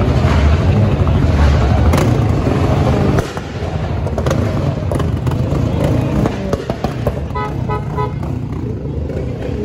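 Vehicle engines running loud in a crowded street for the first three seconds, then dropping lower. About seven seconds in, a horn sounds a quick run of short toots.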